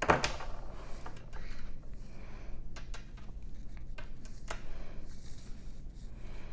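Small brass padlock and its key being handled: a sharp click right at the start, then a few faint scattered clicks and light rustling.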